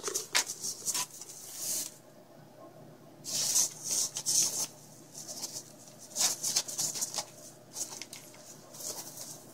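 A prairie dog dragging a large fuzzy fabric hammock over hay-strewn bedding and into a plastic pet carrier: bursts of rustling and scraping that come in spurts, with short pauses between tugs.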